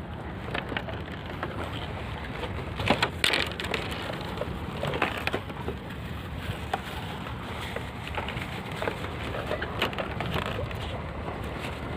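Scattered clicks, knocks and rustles of hands unhooking a small freshly caught fish and handling the fishing line, over a steady background hiss.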